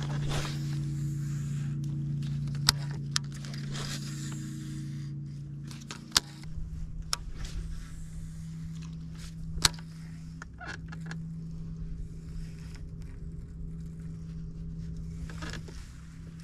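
Bass boat's electric trolling motor humming steadily, its pitch shifting slightly about six seconds in, with a few sharp clicks over it.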